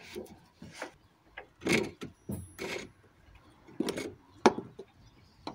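Irregular scraping and knocking as the ABS sensor cable is worked and pulled up through a hole in a car's steel floor pan, with a sharp click about four and a half seconds in.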